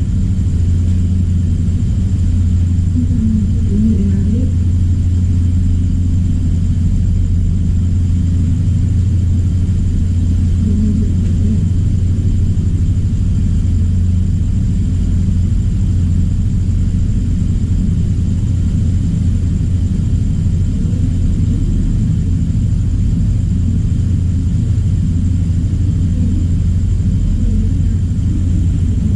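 Steady low-pitched electrical or mechanical hum that does not change, with faint voices in the background.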